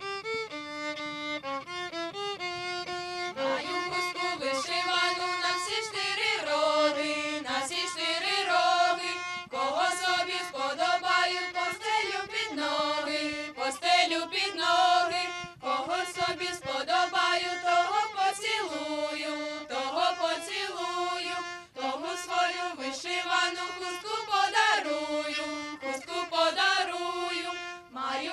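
Children's violins playing a Ukrainian folk melody. The sound thickens from about four seconds in.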